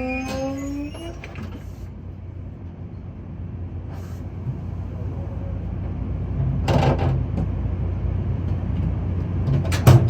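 A commuter train's horn trails off about a second in, then a steady low rumble builds as the train comes closer. Sharp clattering breaks in around the middle and again near the end.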